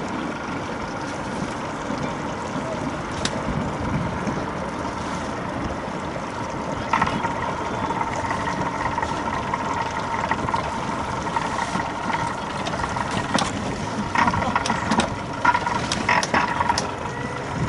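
Motorboat engine idling, a steady running sound, with a few light knocks and clicks near the end.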